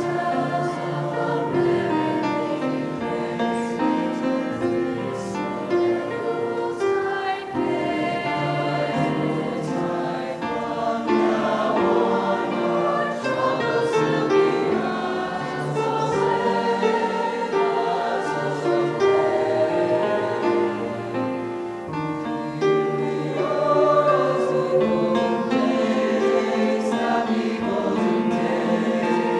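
A large mixed high-school choir of male and female voices singing in harmony, with long held notes.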